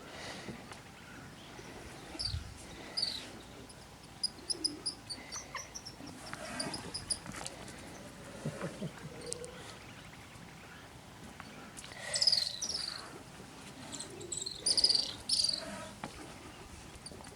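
Wildlife ambience of high-pitched chirping calls: scattered single chirps and short runs of quick repeated notes, with two louder clusters of calls in the second half.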